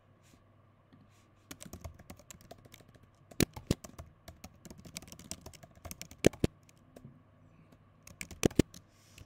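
Typing on a computer keyboard: an irregular run of key clicks starting about a second and a half in, with a handful of sharper, louder keystrokes among them.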